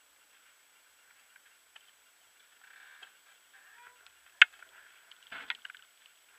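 Sparse light clicks and ticks, then one sharp click about four and a half seconds in and a short rustling clatter about a second later.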